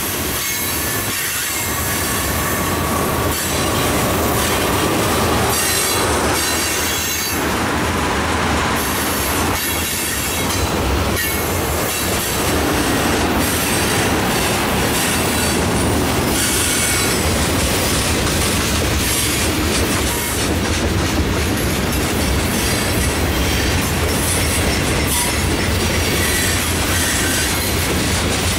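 Loaded freight cars, mostly tank cars, rolling steadily past at close range: steel wheels rumbling and clattering on the rail, with faint high wheel squeal that comes and goes.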